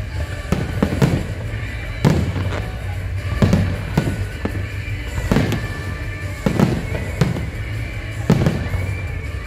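Fireworks display: aerial shells bursting one after another, a bang every second or so, some close together in pairs, with music playing underneath.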